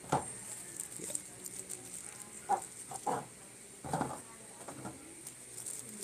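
Unboxing handling noise: a plastic bag crinkling and a small box being pulled from its white foam packaging insert. There are a few short squeaks and knocks, the sharpest about two and a half, three and four seconds in.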